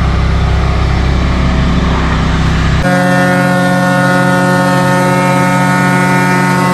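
Large engine running steadily at constant speed. About three seconds in, the sound switches abruptly to a different, higher engine note.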